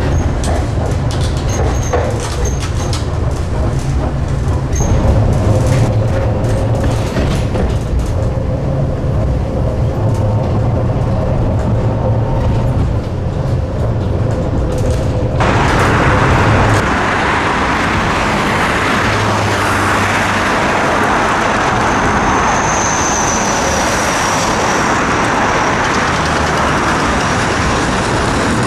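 Tatra T3R.P tram running on the rails, heard from on board: a low rumble with a steady whine that sets in about five seconds in. About halfway through the sound changes abruptly to a tram running on street track heard from outside, a broader rolling noise with a faint high squeal about two-thirds of the way through.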